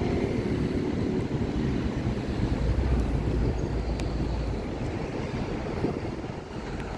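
Low, steady outdoor rumble of city traffic, with wind buffeting the microphone, heaviest around the middle.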